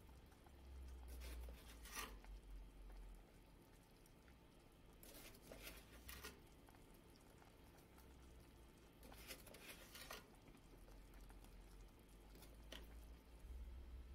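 Faint patter of granulated sugar being poured into a pot of simmering beef and vegetables, in three short pours.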